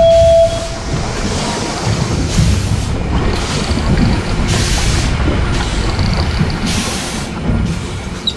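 Rumbling, gusting wind and sea noise on a fishing boat, with a few louder hissing swells. A steady held tone cuts off about half a second in.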